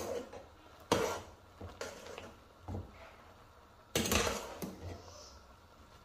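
Metal spoon knocking and scraping against a pot while stirring noodles: about six sharp clinks, the loudest about a second in and about four seconds in.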